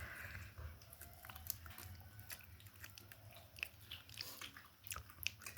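A person chewing chicken, faintly, with scattered small wet clicks and crunches of the mouth and food.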